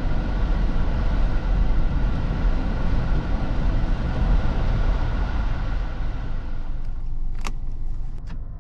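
Mitsubishi Outlander 2.4 MIVEC SUV on the move: a steady low rumble of engine, tyres and wind. Near the end the rumble drops and a few sharp clicks follow.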